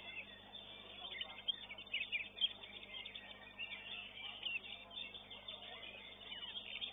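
Kacer (Oriental magpie-robin) singing: a fast, continuous run of short chirps and whistles. It is heard through a CCTV microphone that cuts off the highest tones.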